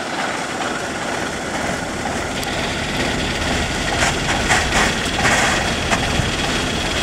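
Kubota combine harvesters' diesel engines running steadily, growing a little louder about halfway through.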